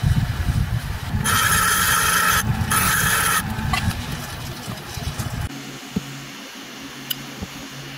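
Bench grinder running with a wire wheel, scrubbing rust off an adjustable wrench: two bursts of hissy scraping as the wrench is pressed to the wheel, the second shorter. About five seconds in it gives way to a quieter, low steady hum.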